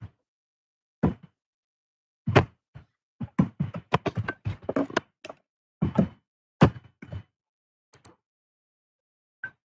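A series of irregular close thuds and knocks from handling things on a desk near the microphone, sparse at first, then a quick cluster in the middle, then a few light taps near the end.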